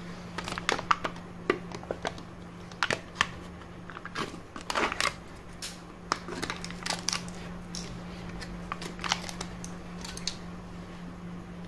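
Foil seal on a plastic wipes tub being torn and peeled off by hand, crinkling and crackling on and off in irregular sharp crackles.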